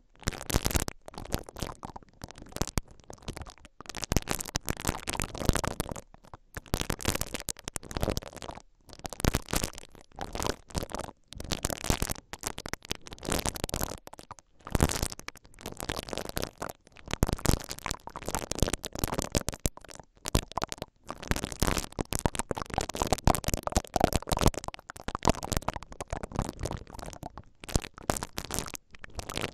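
Silicone-bristled ear-pick brushes rubbing and twisting inside the mesh grilles of a stereo pair of microphones, a close, dense scratchy rustle. It comes in slow strokes of a second or two with short breaks between them.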